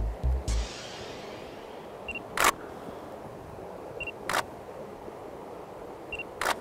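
DSLR camera taking photos: four sharp shutter clicks about two seconds apart, the last three each preceded by a short high autofocus-confirmation beep. A low rumble in the first half second.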